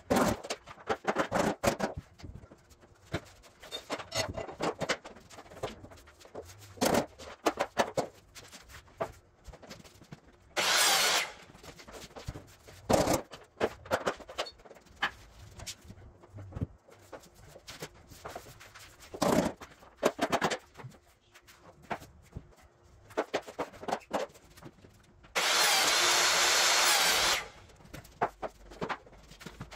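Luxury vinyl planks being fitted: a scatter of sharp taps, knocks and clicks as planks and tools meet the floor. A power tool runs briefly about a third of the way in, and again louder for about two seconds near the end.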